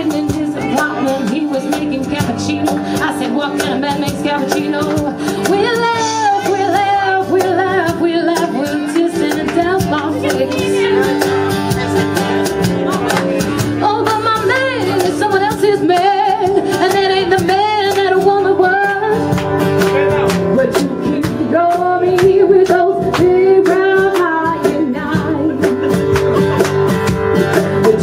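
Live acoustic band playing a song: a voice singing over guitar, with a steady beat of cajon hits.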